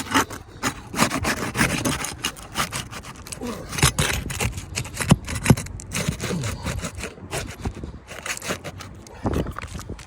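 Asphalt roof shingles being scraped and rubbed in irregular strokes, with occasional knocks, as they are worked for a brittleness test.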